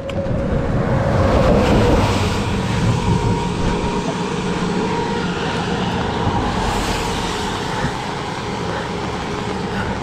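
A vehicle driving past on a wet road: tyre hiss and engine noise swelling about a second or two in, then staying steady, mixed with heavy rain and wind on the microphone.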